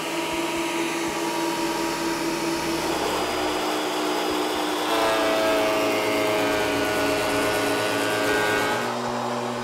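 Benchtop thickness planers, a Craftsman and then a Vevor, running and planing rough-cut walnut boards: a steady motor-and-cutterhead whine. The pitch of the whine changes about three and five seconds in and again near the end.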